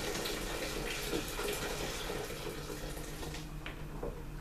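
Just-boiled water poured in a steady stream from an electric kettle into a pot of thick beer mash, adding heat and thinning the mash; the pour tails off near the end.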